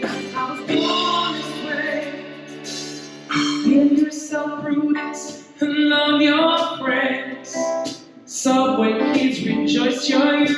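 Live band playing a pop song with a lead singer and backing vocals, sung notes held and gliding over keyboard and band accompaniment.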